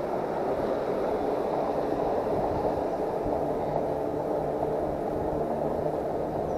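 Steady rushing of wind and tyre noise from an e-bike being ridden along a road, with a faint steady hum underneath.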